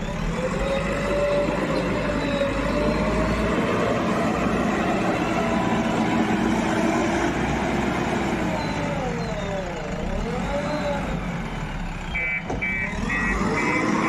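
JCB backhoe loader's diesel engine running under load, its pitch rising and falling as the front loader works the soil, with a quick dip and recovery about ten seconds in. Near the end a rapid run of evenly spaced high beeps starts, typical of the machine's reversing alarm.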